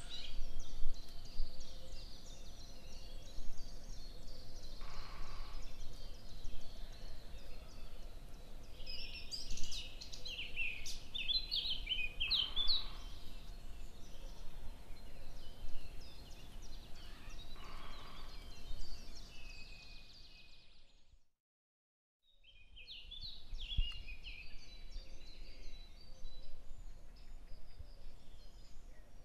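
Birds chirping and twittering in a busy, overlapping chorus. The sound fades out and drops to silence for about a second two-thirds of the way through, then the chirping resumes.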